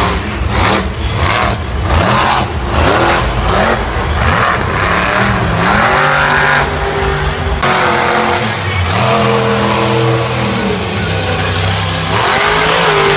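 Monster truck engine revving hard, its pitch climbing and dropping several times as the truck drives and turns.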